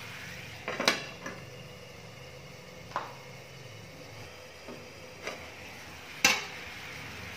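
Aluminium pan lid clanking on a frying pan: several sharp metal knocks, the loudest about a second in and another a little after six seconds, as the lid is set on and then gripped to lift. A faint low hum runs underneath.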